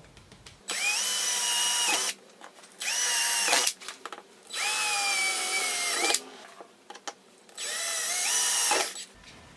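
Electric drill boring the first mounting hole into a motorcycle Tour-pak lid. It runs in four short bursts of a second or so each, with brief pauses between, and its motor pitch dips as it slows at the end of each burst.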